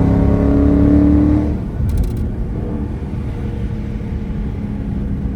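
Dodge Charger R/T's 5.7-litre HEMI V8 breathing through a JLT cold air intake, pulling hard with its pitch rising, then easing off about a second and a half in to a steady, lower drone.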